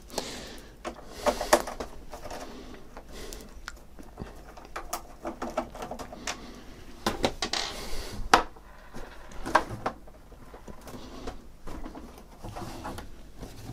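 Scattered clicks and knocks of a screwdriver working a screw out of a Macintosh Plus's plastic case, then hands gripping and tugging on the case to pull it apart.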